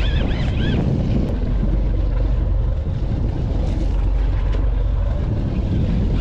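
Steady wind buffeting the microphone on a fishing boat at sea, over a low rumble, with a few short high rising-and-falling chirps in the first second.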